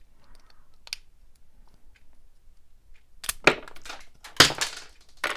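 Blue plastic drive assembly of a Life-Like HO scale model locomotive being pried apart: one light click about a second in, then several sharp plastic cracks and snaps from about three seconds in as the parts come apart and small gears spring loose.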